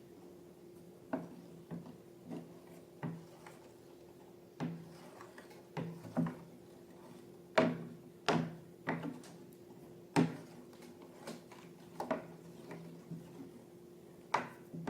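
Glossy slime being squished and worked by hand: irregular sticky pops and clicks, one or two a second, the loudest about halfway through, over a faint steady hum.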